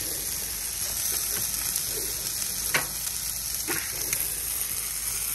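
London broil sizzling on a hot Blackstone flat-top griddle: a steady frying hiss with a few sharp pops of fat.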